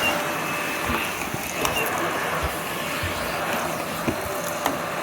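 Vacuum cleaner running, a steady rushing noise with a few small clicks and knocks.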